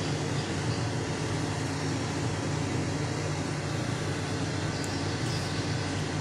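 Steady low mechanical hum with an even hiss behind it.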